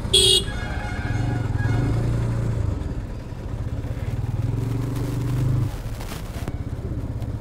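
Motorcycle engine running at low speed as the bike is ridden slowly, its hum swelling and easing and dropping off about five and a half seconds in. A short horn toot sounds right at the start.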